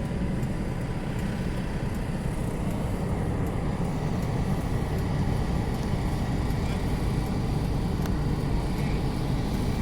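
Steady low rumble of a car running, with no break or change.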